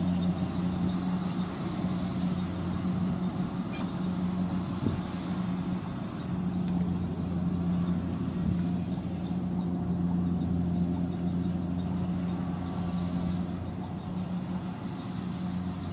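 Kubota DC-70 combine harvester's diesel engine running steadily with a constant low hum.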